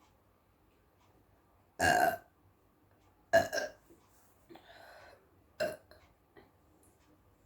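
A woman burping three times, loud and short, about two, three and a half, and five and a half seconds in, the second with a double push, from gulping apple juice quickly. A quieter, longer sound comes between the second and third burps.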